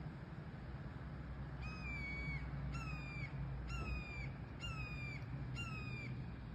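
Juvenile red-tailed hawks giving their high, thin begging call five times, about once a second, each call held for about half a second with a slight fall in pitch. A steady low rumble runs underneath.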